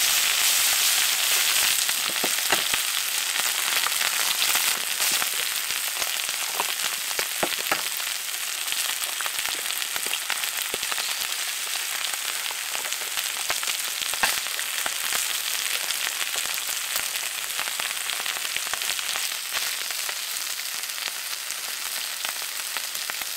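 Rice, pork and eggs frying in oil on a hot griddle: a steady sizzle, dotted with small crackles and a few sharper clicks.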